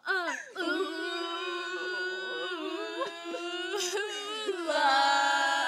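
A voice singing long held notes: one steady note for about four seconds, then a second, louder held note starting near the end.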